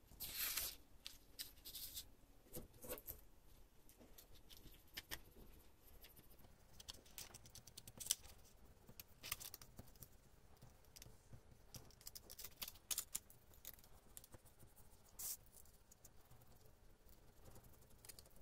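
Plastic bone folder scraping and rubbing over clear tape and paper in short, irregular strokes, with paper rustling; the loudest rustle comes about half a second in.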